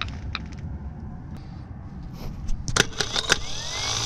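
Original starter motor from a Mercedes OM617 diesel, bench-tested off the car. A few light metal clicks, then sharp clicks and crackles as a screwdriver bridges its terminals, then the motor spins up with a rising whine near the end. This starter is faulty: its pinion is slow to retract.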